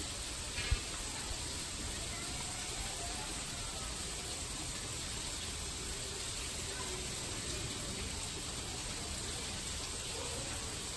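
Steady, even outdoor hiss with faint distant voices, and one short knock a little under a second in.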